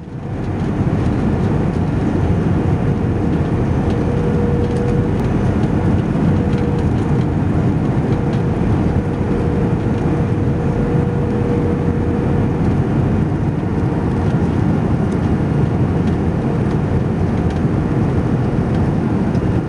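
Steady roar of engine and airflow noise heard inside the cabin of an Airbus A321 descending on approach to land, with a faint steady hum that fades in and out.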